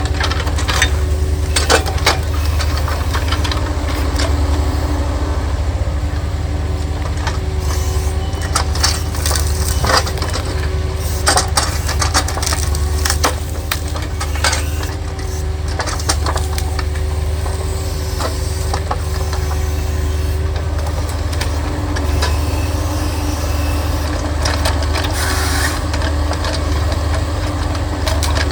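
Diesel hydraulic excavator running steadily while wood cracks and snaps, with irregular sharp knocks of logs and branches being gripped and moved, most frequent in the first half.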